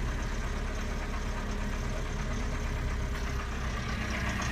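1985 Toyota 22RE four-cylinder engine idling steadily just after a cold start, sounding terrible, with a noise that the owner puts down to a loose timing chain with a lot of slack.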